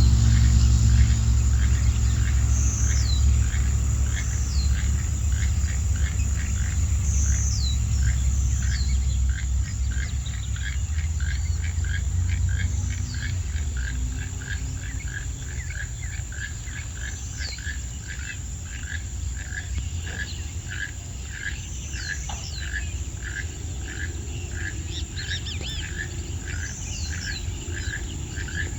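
A frog calling in a steady train of short pulses, about three a second, with a bird's short high whistles falling in pitch every few seconds. A low rumble fades out over the first half.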